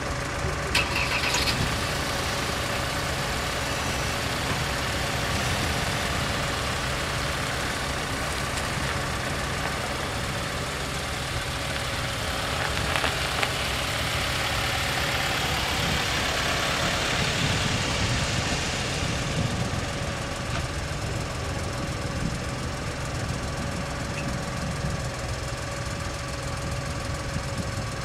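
A van's engine idling close by, with a swell of engine and road noise in the middle as it moves off. A steady high tone runs throughout from the level-crossing warning signal.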